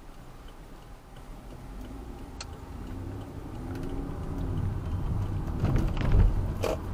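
Car driving through a left turn, heard from inside: the turn signal clicks steadily at first, then engine and tyre noise grow louder as the car accelerates, loudest about six seconds in with a brief clatter of knocks.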